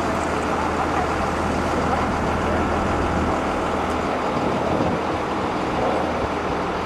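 A motor engine running steadily amid a broad rushing noise, with a low hum that drops away about halfway through.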